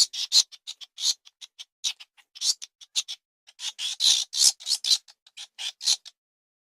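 Rat squeaking: a quick, irregular run of short, high-pitched squeaks and chirps that stops about six seconds in.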